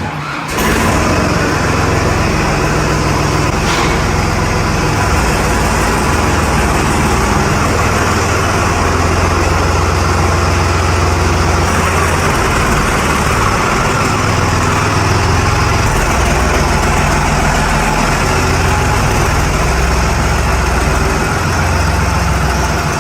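Tractor diesel engine running loudly and steadily. It comes in abruptly about half a second in.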